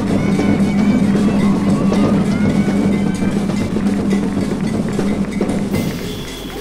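Brazilian street band playing loud rhythmic music with drums, over a held low note.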